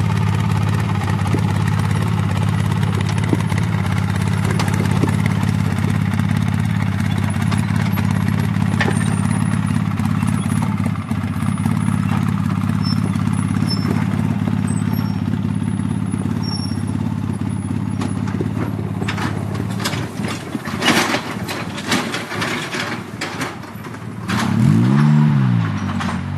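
Vehicle engine running steadily at low revs, with a few seconds of knocks and clatter near the end, then one rev that rises and falls back.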